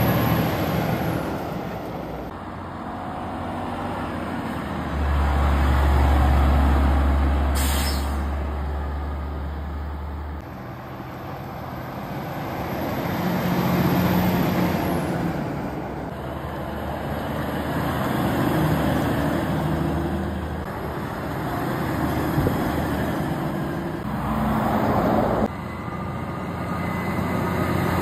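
Heavy diesel tipper lorries driving slowly past one after another, engines pulling, with a deep steady engine drone for several seconds in the first part. There is a short air-brake hiss about eight seconds in.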